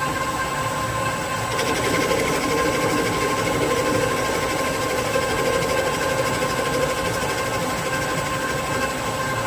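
Victor 1640 DCL lathe running steadily, its spindle and drive giving an even machine hum with steady whining tones.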